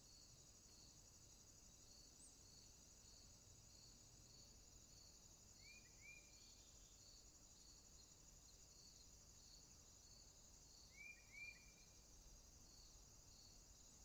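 Faint forest ambience: a steady high insect chorus with a regular chirp about twice a second. Two pairs of short, quick bird chirps come through, one about halfway in and one near the end.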